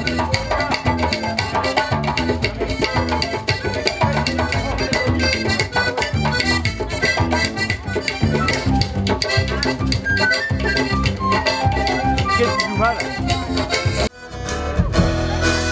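A live band plays upbeat dance music with accordion, hand drums and guitar over a steady beat. About fourteen seconds in the music breaks off briefly and different music begins.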